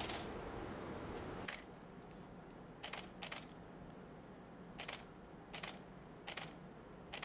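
A camera shutter clicking about eight times, single sharp shots at irregular intervals over faint room noise.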